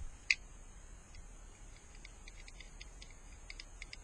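Airsoft guns firing across the field: one sharp crack about a third of a second in, then scattered short clicks that bunch into quick runs near the end.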